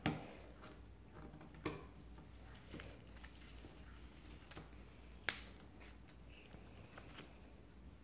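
Origami paper being folded and creased by hand: faint rustling with a few sharp little clicks, the sharpest about five seconds in.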